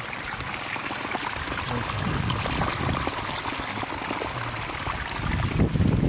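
Water running and trickling steadily, with a few light clicks, and a burst of low rumble near the end.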